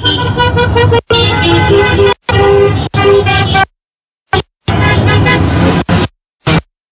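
Car horns from a convoy of cars honking in long blasts, several horns of different pitches sounding together. The sound cuts out to silence abruptly several times.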